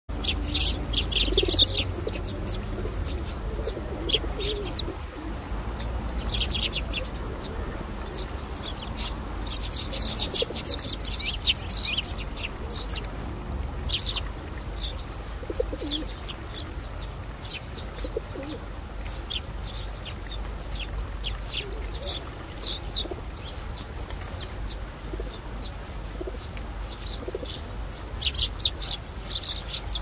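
A flock of Eurasian tree sparrows chirping, many short high chirps coming in busy flurries with thinner spells between, with the flutter of wings as birds land and take off. A steady low rumble runs underneath.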